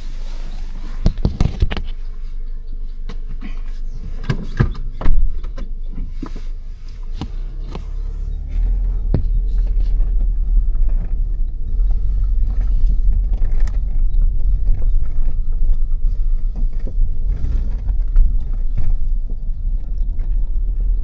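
Wind buffeting the microphone: a loud, steady low rumble that grows louder about eight seconds in. Scattered sharp knocks and scuffs from footsteps and handling sound over it, most of them in the first few seconds.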